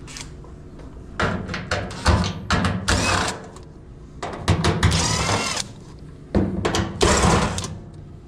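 A cordless drill-driver running in several short bursts, backing screws out of a dryer's sheet-metal back panel.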